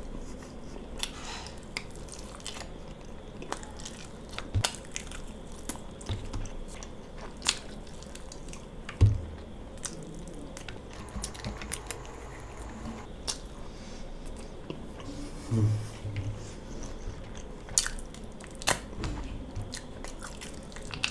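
Close-miked eating of mutton curry and rice by hand: wet chewing and mouth smacks with many small sharp clicks. A few short low knocks stand out, the loudest about nine seconds in.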